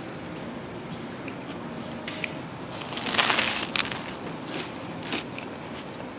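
Crusty baguette sandwich being bitten into and chewed close to the microphone: one loud crunch about three seconds in, with smaller crunches and clicks around it.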